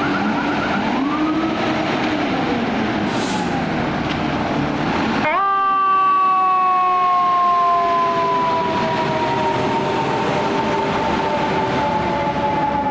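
Fire truck siren: for about five seconds a quick rising-and-falling wail, then an abrupt switch to a single siren tone that falls slowly and steadily in pitch.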